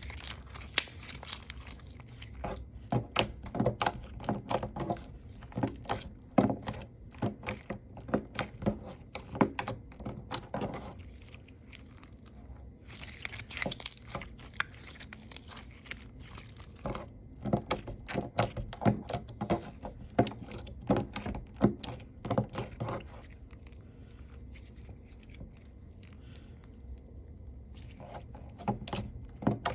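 Clear slime with star and purple glitter being squished and stretched by hand, giving quick, irregular sticky clicks and pops in clusters, with a couple of quieter pauses.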